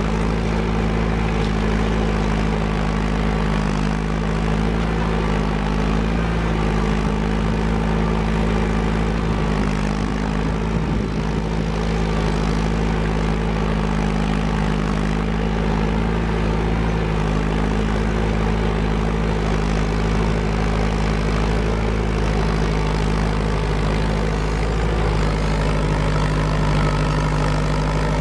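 Farm tractor engine running steadily under the load of pulling a two-bottom moldboard plow through sod.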